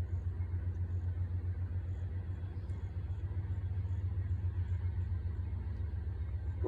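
Low, steady rumble of a nearby train, with a slight rapid flutter in loudness.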